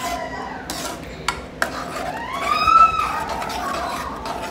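A steel ladle stirs and scrapes a thick, simmering corn gravy in a steel kadai, with a few sharp clinks of metal on metal. About two seconds in, a high-pitched tone rises and then holds for about a second, louder than the stirring.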